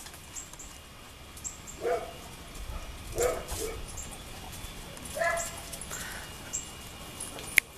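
A dog giving a few short, pitched barks spaced a second or two apart, and a single sharp click near the end.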